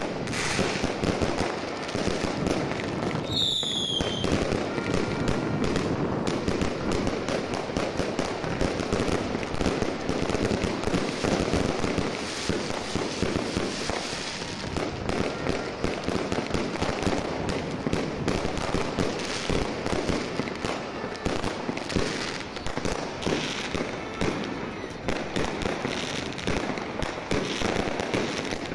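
Aerial fireworks going off nonstop: rockets and shells making a dense, rapid crackle of many small bangs and pops. A single firework whistle falls in pitch about three and a half seconds in.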